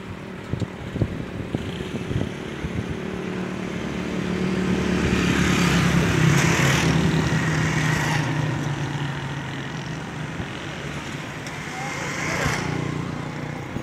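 A motor vehicle's engine passing by: its hum grows louder over a few seconds, peaks near the middle, then fades away.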